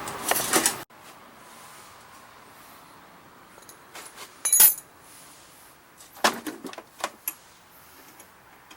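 A steady running noise that cuts off abruptly just under a second in, followed by scattered sharp clicks, clinks and knocks of objects being handled, the loudest about four and a half seconds in and a quick cluster between six and seven and a half seconds.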